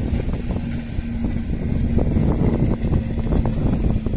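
Wind buffeting the microphone on an open seaside breakwater, a dense gusty noise, with a steady low hum underneath.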